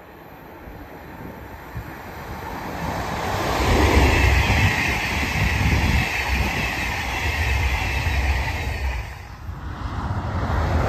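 Deutsche Bahn ICE high-speed electric train passing close by at speed: a rushing rumble of wheels and air that builds from about two seconds in, stays loud and steady through the middle, then drops away near the end as a second train, a double-deck Intercity, begins to approach.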